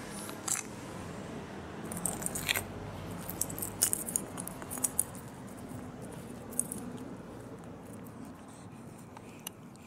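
Scattered light clicks and rustles, mostly from about two seconds in, as a kitten bats, bites and rolls a plastic feathered ball toy on asphalt, over a faint outdoor background hush.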